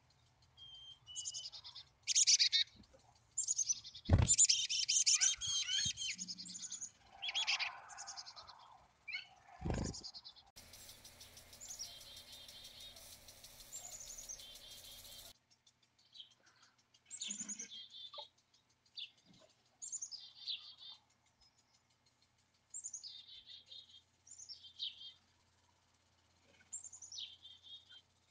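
Black-capped chickadees calling: short, high notes that drop in pitch, given in irregular bunches, busiest in the first third. Two low thumps come about four and ten seconds in.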